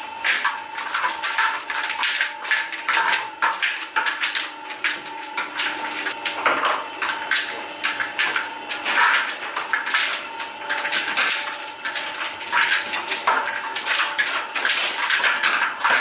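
Continuous bakery work noise: rapid, irregular clatter and knocking of hard tools and trays, over a steady mechanical hum.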